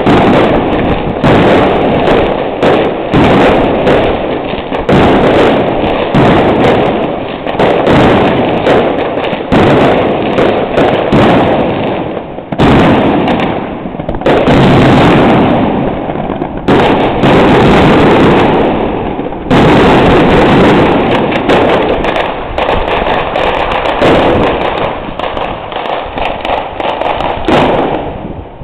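Aerial fireworks display: shells bursting in rapid, overlapping bangs almost without pause, dying away near the end.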